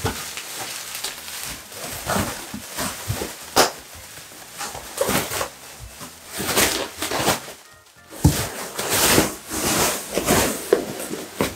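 Plastic bubble wrap rustling and crinkling with irregular sharp pops as a Labrador roots through and tramples a floor heaped with it and a man handles sheets of it, over background music. The activity dips briefly just before the last third.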